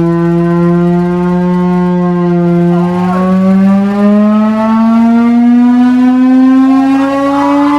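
Chrysler air raid siren sounding a loud, pitched tone, holding steady and then rising slowly from about two and a half seconds in.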